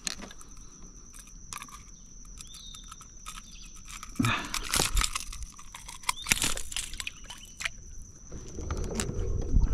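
Handling noise as a freshly landed snook is held and unhooked in a kayak: scattered clicks and knocks, with two louder bursts of crackling rustle about four and six seconds in, over a thin steady high-pitched whine. A low rumble builds near the end.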